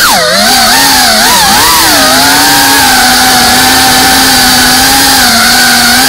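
FPV quadcopter's motors and propellers whining. The pitch swoops up and down for about the first two seconds as the throttle changes, then settles into a steady buzz.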